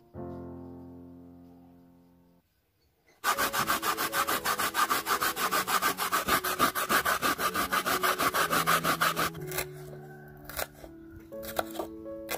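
Fresh coconut flesh being grated by hand on a grater: a run of rapid, even rasping strokes that starts about three seconds in and stops about nine seconds in.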